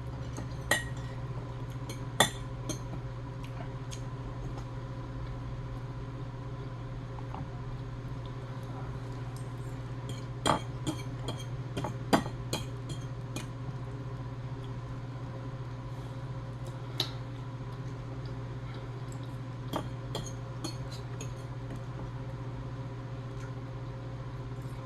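Scattered clinks and clicks of utensils, dishes and shells being handled while eating a seafood boil, a handful of sharper knocks among them, over a steady low hum.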